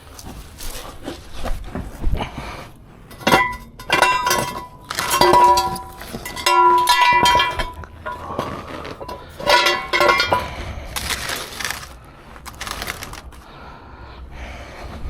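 Hard metal objects clanking and knocking together, several of them ringing on with a clear pitch. There are two busy clusters of clanks in the middle, with lighter knocks around them.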